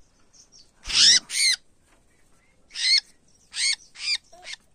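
Red-whiskered bulbul giving a series of short calls that bend in pitch, two about a second in and then four in quick succession.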